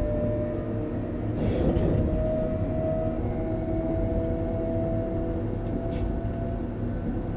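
Electric train running at speed, heard from inside the driving cab: a steady low rolling rumble with a faint, steady electric whine over it. A brief hiss sounds about one and a half seconds in.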